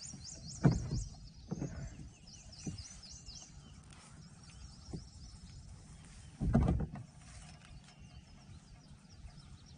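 A bird calling in a rapid string of high chirps for the first three seconds or so, noisy enough that the angler suspects a gator near its nest. A few low thumps are also heard, the loudest just under a second in and a longer one about six and a half seconds in.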